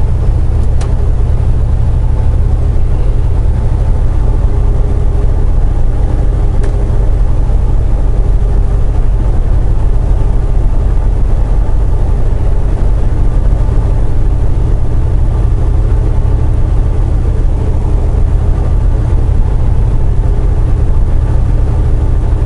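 Semi truck's diesel engine and road noise heard inside the cab while cruising, a loud steady low drone with no change.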